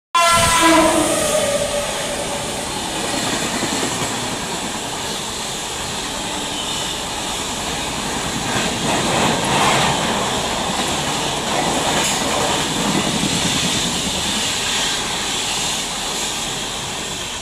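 Express train hauled by an electric locomotive passing at high speed: the locomotive's horn sounds briefly at the start, falling in pitch as it goes by, then the coaches rush and rattle past steadily over the rails.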